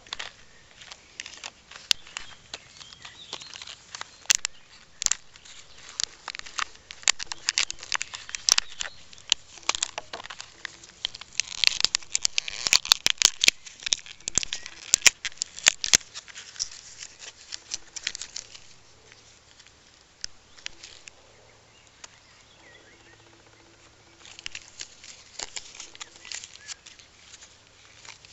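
Plastic blister pack of batteries being torn open and handled: runs of crinkling, crackling and sharp clicks, densest through the first two-thirds, thinning out after that and picking up again near the end.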